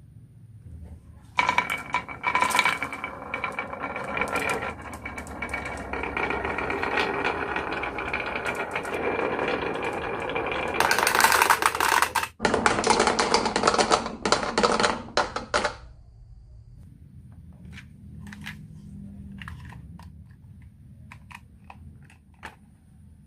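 Many marbles rolling and clattering down a toy marble run, a dense rattle with some ringing that lasts about fourteen seconds and breaks off sharply once partway. After that come scattered clicks of single marbles knocking along the track.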